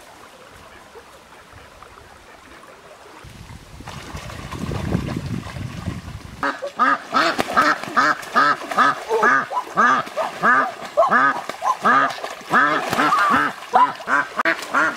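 Duck quacking in a rapid, loud run of calls, about two to three a second, starting about six and a half seconds in; before that a low rushing noise.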